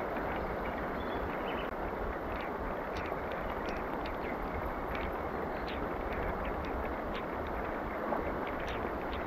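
Steady rain falling on the river and surrounding leaves: an even hiss with many scattered ticks of individual drops.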